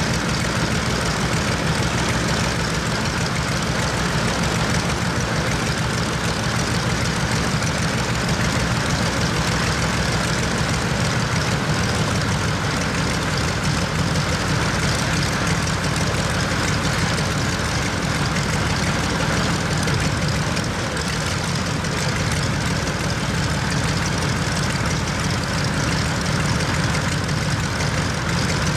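Mitsubishi A6M5 Zero fighter's Nakajima Sakae 21 fourteen-cylinder radial engine idling steadily, turning the propeller with an even rapid firing beat.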